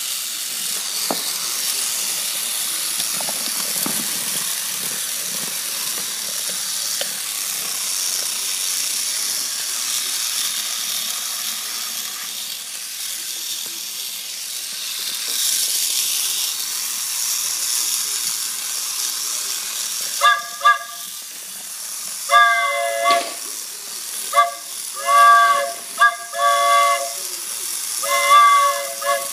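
Toy steam-train sound effects: a steady steam hiss, then, from about two-thirds of the way through, a run of short two-note whistle toots repeated several times.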